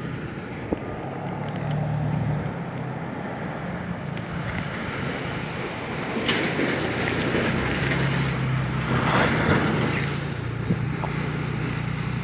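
Steady low hum of a running motor vehicle engine, with a broad rushing hiss that swells about six seconds in and eases after about ten.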